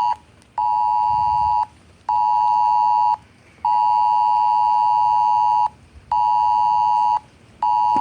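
Mobile phone emergency alert tone blaring in a repeating cadence: one-second blasts and a two-second blast of a harsh steady tone, separated by half-second gaps. It keeps sounding and does not stop on its own.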